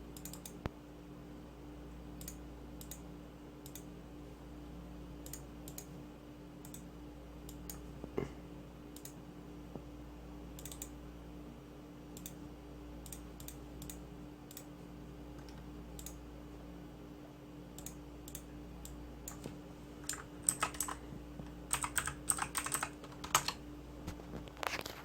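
Computer keyboard keys being pressed: scattered single keystrokes, then a quick run of typing over the last few seconds, over a steady low hum.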